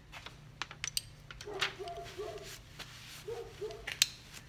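Workbench handling noise: a paper sheet rustling and scattered light clicks and knocks of a greasy CV joint being picked up and handled among rags, with a few short pitched sounds in the middle and a steady low hum underneath.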